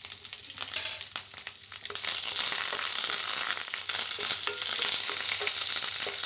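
Mustard seeds and urad dal crackling and popping in hot oil in a kadai. About two seconds in, the sizzle jumps louder and stays up, as curry leaves go into the hot oil.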